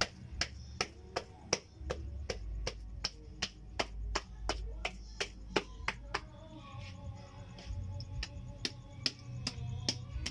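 Hands patting and slapping a mound of damp earth to shape a clay stove, in sharp repeated slaps about two or three a second. Music plays in the background from about six seconds in.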